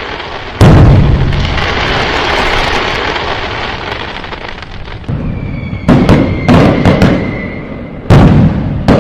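Fireworks exploding: a loud bang about half a second in, trailing off into a long crackling rumble, then a high whistle and a run of sharp bangs in the second half.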